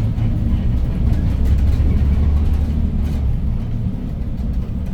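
Hyundai New Super Aerocity city bus with a CNG C6AF engine and manual gearbox driving, heard from inside near the front: a steady low drivetrain and road rumble, swelling about two seconds in, with light cabin rattles.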